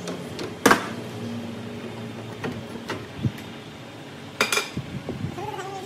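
Sharp metallic clinks and knocks of steel tools and workpiece being handled at a metal lathe. The loudest comes about a second in and a pair comes about four and a half seconds in, over a steady low hum.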